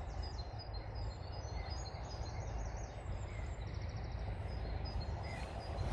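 Outdoor ambience: a steady low rumble with small birds chirping repeatedly, high and short, in the background.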